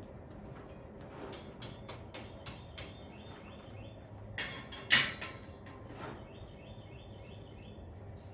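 Light metallic clicks and ticks of tongs and stock being handled in a blacksmith's forge fire while the iron heats, with one sharper knock about five seconds in. Faint bird chirps sound twice in the background.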